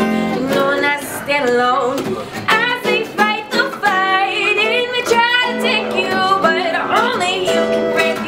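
A woman singing with sliding, ornamented phrases over an acoustic bass guitar and a strummed acoustic guitar, played live.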